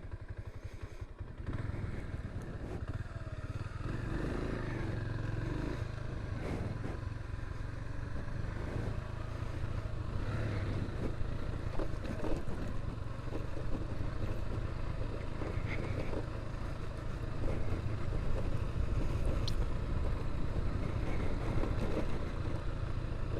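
Dafra Kansas 150 motorcycle's single-cylinder engine running as the bike rides along a dirt road, its low rumble picking up about a second in, with wind noise on the microphone.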